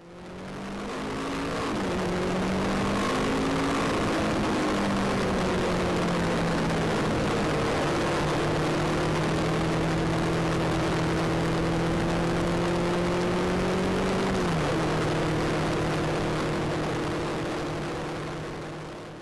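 Car cabin sound from a dashcam while driving at motorway speed: steady road and wind noise with the engine's drone underneath. The engine note rises about two seconds in and drops once about three quarters of the way through.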